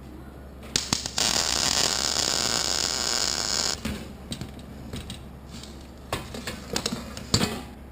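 MIG welder arc crackling: two short starts, then one steady weld of about two and a half seconds. Short, sharp bursts follow, most of them near the end, typical of tack welds.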